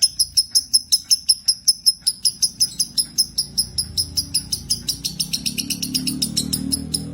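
Lovebird chirping in a rapid unbroken run of high, sharp chirps, about seven a second: the continuous 'konslet' song style. A faint low hum sits underneath, a little louder in the second half.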